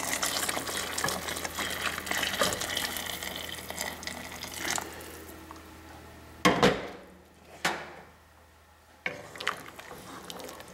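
Chicken broth poured into a pot of tomato-sauced pasta shells: a steady splashing pour for about five seconds that then tails off. About six and a half seconds in comes a loud knock, and near the end a wooden spoon stirs and scrapes in the pot.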